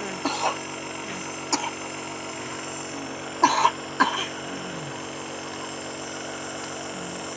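A baby coughing a few short times in the first half, over the steady hum of a nebulizer's compressor. These are the coughs of a baby with a cold, during nebulizer treatment to loosen phlegm.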